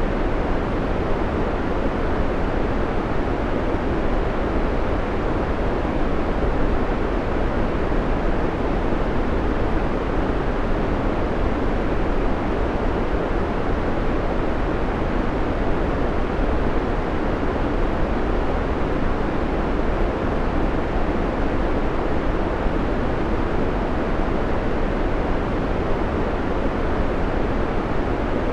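Steady white noise: an even, unchanging rush, heavier in the low and middle pitches.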